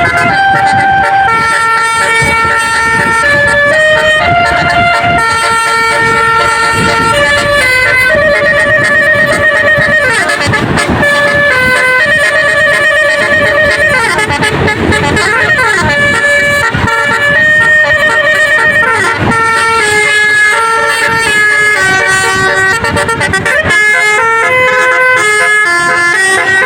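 Bus's Basuri multi-tone musical horn (telolet horn) playing a melody, held notes and chords stepping from one pitch to the next without a break.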